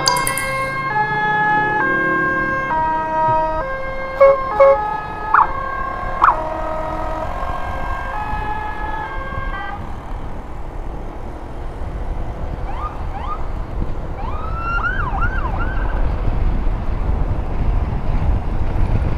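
Electronic siren sounding a stepped tone pattern, its pitch jumping between several notes about every two-thirds of a second, with a few short loud blasts around four to six seconds in. It stops about ten seconds in, leaving a low vehicle rumble with several faint rising-and-falling glides.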